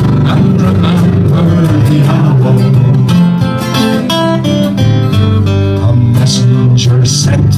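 Two acoustic guitars playing together in an instrumental passage between verses of a folk song.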